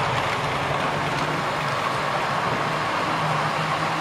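Model train running on the layout's track: a steady motor hum with the wheels rolling on the rails.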